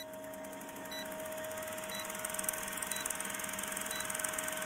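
Old film-projector countdown effect: a steady fast mechanical rattle with hiss and a low steady hum, and a short high beep once each second as the leader counts down.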